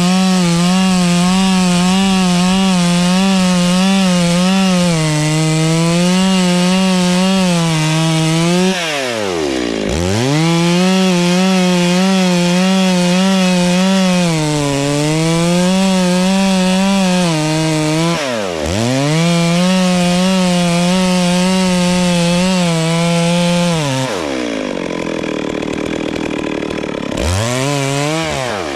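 Two-stroke chainsaw cutting into a tree at full throttle, its pitch sagging a little under load. It drops briefly to idle twice and revs straight back up. Near the end it idles for a few seconds, then revs again.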